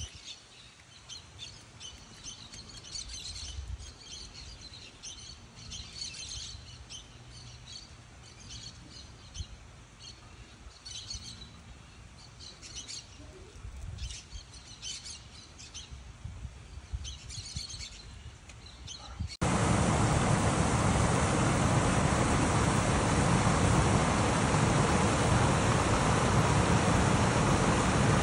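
Small birds chirping in short bursts of high calls. About two-thirds of the way through, the sound cuts abruptly to the much louder, steady rush of a waterfall.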